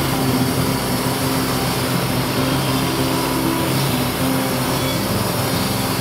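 Wood-Mizer LT40 Wide portable band sawmill running steadily, its engine driving the band blade as the saw head travels along a large eastern red cedar log.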